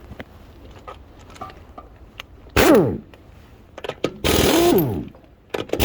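Impact wrench working the wheel lug nuts in short bursts, twice, with a third burst starting at the very end. Each burst is a fast rattling hammer whose pitch falls as it runs.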